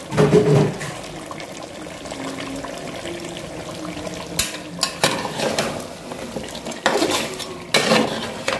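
Metal spoon stirring chunks of beef curry in an aluminium pot. From about halfway through it scrapes and clatters against the pot's sides in several short bursts.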